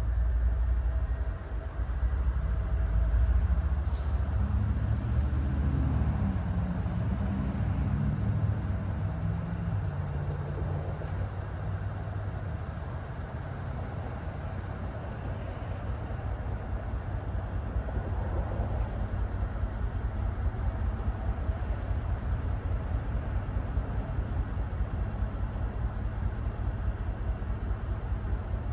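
Steady low rumble of a train, with an engine's pitch shifting up and down for a few seconds near the start.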